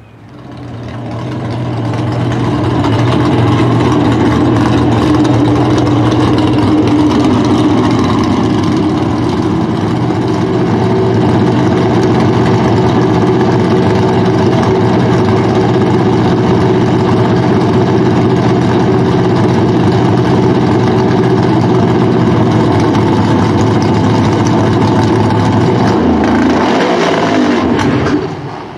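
Pro Stock drag car's V8 engine starting up, then running loud and steady at a high idle for a long warm-up, with a brief shift in tone shortly before it cuts off near the end.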